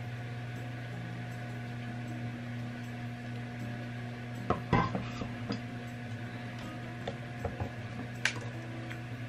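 Small hard objects clinking and tapping as they are handled on a desk: a cluster of knocks about halfway through, then a few separate sharper ticks. A steady low hum runs underneath.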